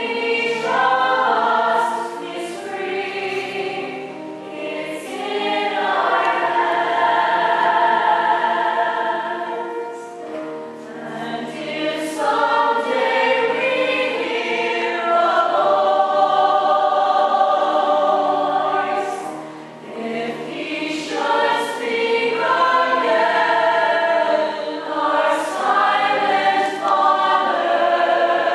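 A musical-theatre cast singing together as a chorus in a live stage performance, held notes swelling and easing off briefly about 5, 10 and 20 seconds in.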